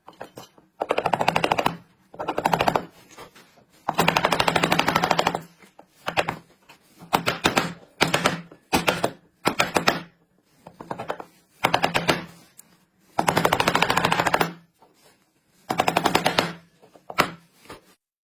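A power tool working wood in about a dozen short bursts. Each burst is a rapid rattle of clicks lasting from a fraction of a second to about a second and a half, with brief pauses between.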